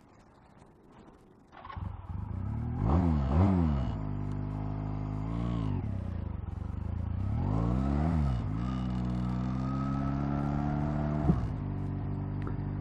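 Honda Rebel motorcycle engine coming to life about a second and a half in, revved up and down three times, then running steadily, with a single sharp click near the end.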